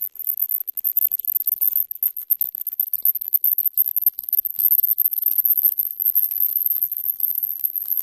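Crackling radio static, dense irregular clicks that grow busier in the second half, over a steady high-pitched whine, as from the audio channel of an analog FPV video link.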